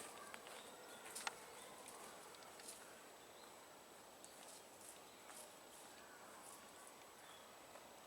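Faint, scattered short high calls from Japanese white-eyes over quiet outdoor hiss, with small ticks and one sharper tick about a second in.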